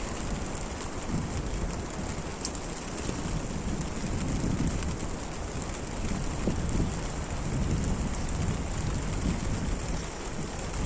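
Steady rain falling, with heavier low rumbling swells through the middle and a sharp drop tick about two and a half seconds in.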